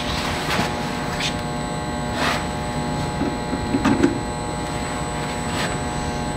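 Steady electrical hum with a few short scratchy noises scattered through it.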